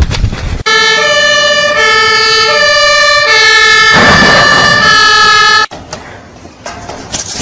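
Fire engine's two-tone siren, alternating between a low and a high note about every three-quarters of a second. It cuts off abruptly near the end and gives way to quieter rustling noise.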